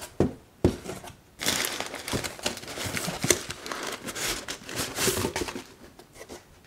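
Cardboard shipping carton and crumpled packing paper rustling and crinkling as a product box is pulled out of it. Two sharp knocks come in the first second, then a few seconds of dense crinkling and scraping that thins out near the end.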